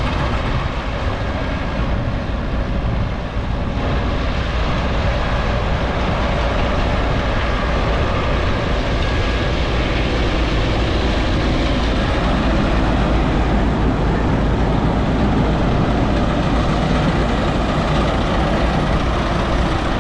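Massey Ferguson 397 tractor running steadily while pulling a hay baler.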